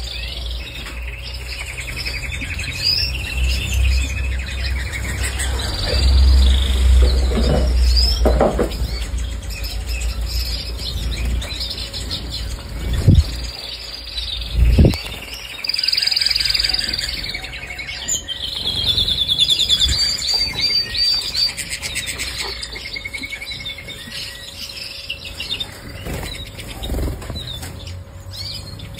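Domestic canaries singing, with fast rolling trills and warbled phrases that overlap at times. About halfway through, two short thumps a couple of seconds apart stand out above the song.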